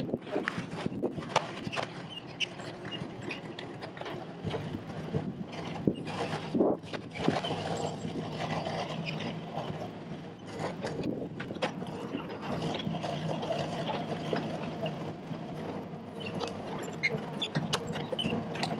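Sany SY50U mini excavator's diesel engine running steadily under hydraulic load, with irregular knocks, clanks and cracks as the bucket digs out and lifts a tree stump with its roots and brush.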